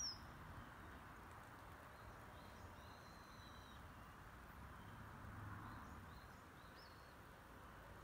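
Common kingfisher giving short, high, thin "chii" calls: one sharp call right at the start, then several fainter ones, over a faint steady hiss.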